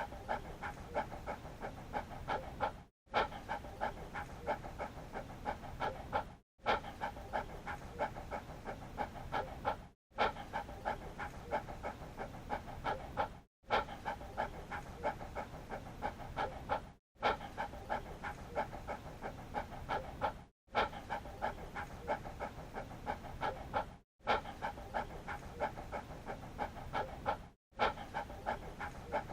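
Dog panting in quick, even breaths. Brief silent gaps about every three and a half seconds show a short recording being looped.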